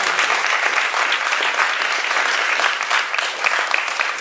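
Audience applauding: many hands clapping at a steady, loud level.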